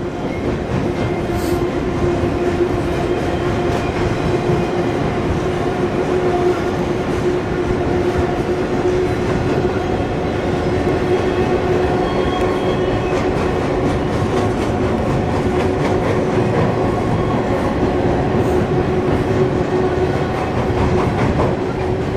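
Union Pacific freight train of double-stack container cars rolling steadily across a railroad bridge overhead: a continuous rumble and clatter of wheels on rail with a steady tone in it.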